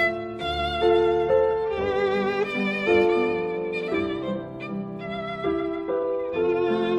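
Background music: a slow violin melody with vibrato over lower accompanying string or piano notes.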